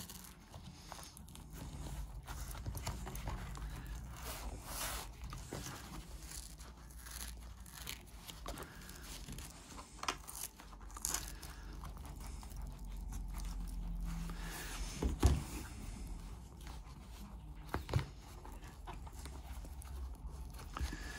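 Rustling, scraping and light tearing as a partly glued cover is prised away from a car armrest by hand, with a few short knocks of the armrest moving, the loudest about fifteen seconds in.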